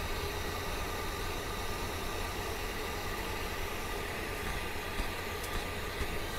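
Blow dryer running steadily on a Shih Tzu's wet coat: an even rush of air with a motor hum of a few steady tones.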